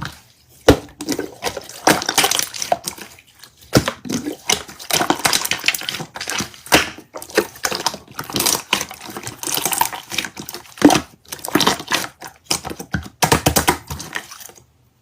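Slime being squished and poked by hand: irregular bursts of wet clicks and crackles with short pauses between them.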